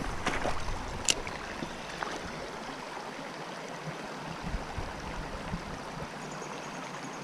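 Shallow creek water running over stones, a steady rush, with a single sharp click about a second in.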